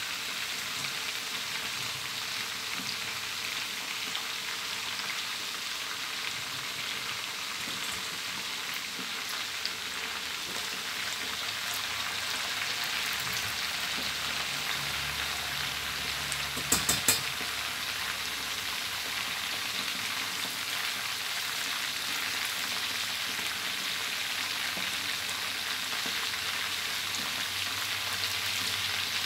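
Pieces of fermented fish deep-frying in a wok of hot oil: a steady sizzle as they are turned. About seventeen seconds in, a few sharp clinks of the metal ladle against the wok.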